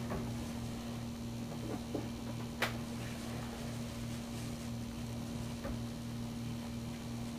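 A steady low machine hum with a faint, evenly pulsing drone underneath, and a single sharp click about two and a half seconds in.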